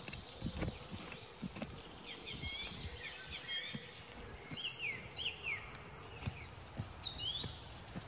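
A narrow metal hand digging tool stabbing and scraping into loose forest soil in repeated short strokes. A songbird sings a run of short falling chirps through the middle.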